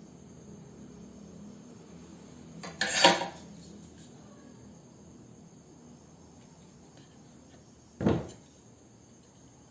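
Hard utensils knocking on a hard surface: a loud rattling clatter about three seconds in, then one sharp knock about eight seconds in.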